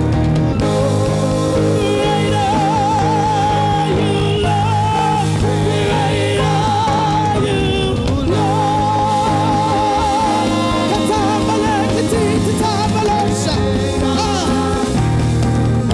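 Worship music: a melody line sung with vibrato over a steady band accompaniment.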